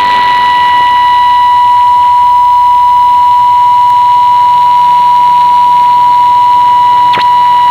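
Steady, unwavering test tone of a shortwave test transmission, announced at −13 dBFS and heard through a shortwave receiver with the hiss of the radio channel behind it. A brief glitch interrupts it about seven seconds in.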